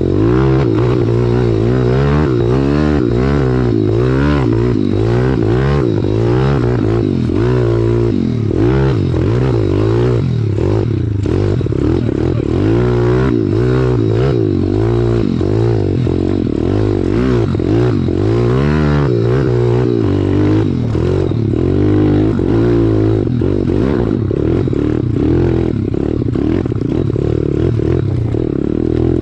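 Pit bike's single-cylinder four-stroke engine being ridden over a rough trail. The revs rise and fall constantly as the throttle is blipped, with the rattle and knocks of the bike jolting over roots and rocks.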